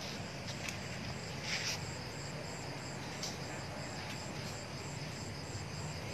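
Crickets chirping in a steady high pulse, about three chirps a second, over a low steady background hum, with a couple of brief faint scuffs.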